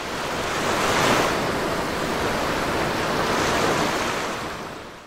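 Ocean surf sound effect: a steady rushing of waves that swells in and fades away.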